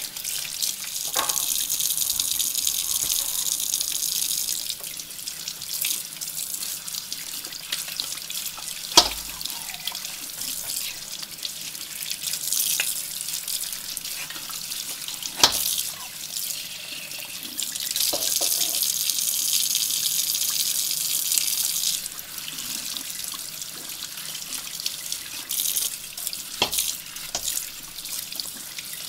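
Kitchen tap running into a porcelain sink, the stream splashing over metal lantern burner parts as they are rinsed and brushed, louder in two stretches as the parts are held under the flow. A few sharp knocks cut through, two of them louder than the water.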